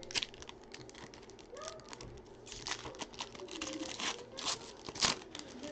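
Foil wrapper of a trading-card pack crinkling and tearing, with cards being handled, as many short, irregular crackles and clicks; the sharpest crackle comes near the end.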